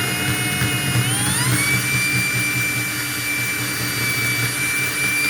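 Small high-speed power cutting tool whining steadily as it cuts into a phone charger's thick plastic casing. Its pitch rises about a second and a half in, then holds steady.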